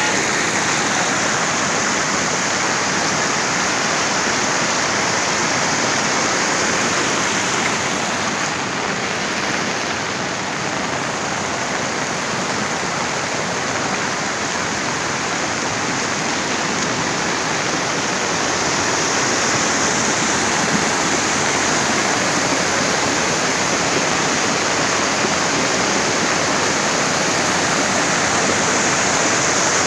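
Floodwater rushing in a swollen river or torrent: a steady, unbroken rush of fast-moving water.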